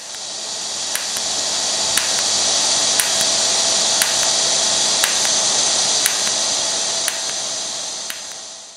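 Welding arc hissing steadily, with a sharp tick about once a second. The hiss fades in at the start and out at the end.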